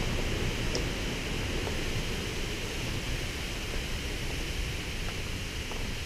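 Steady rushing of a waterfall's falling water, an even hiss over a low rumble, with a few faint footfalls on a gravel path.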